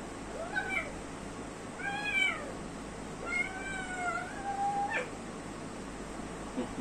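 A kitten meowing four times, each call rising and then falling in pitch.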